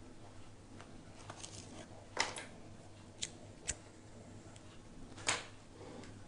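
A few faint, sharp clicks at irregular intervals from a computer mouse as code is scrolled through on screen, over a low steady hum.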